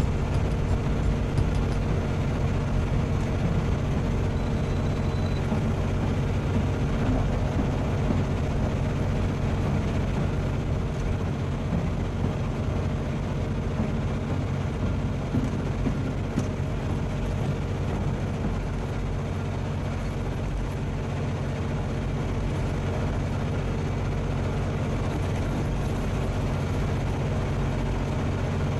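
Semi truck's diesel engine running steadily under way, a continuous low drone with road noise.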